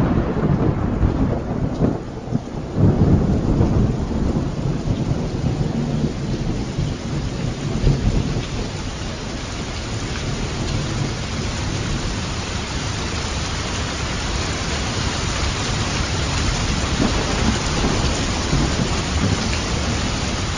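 Thunderstorm: rumbling peals of thunder over steady rain. The thunder is heaviest in the first several seconds, then the rain hiss carries on evenly.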